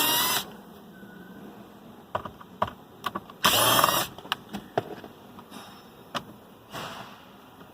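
A cordless drill/driver whirring in short bursts as it backs out the glove box's Phillips screws: one right at the start, a longer one about three and a half seconds in, and a faint one near the end, with light clicks and taps between them.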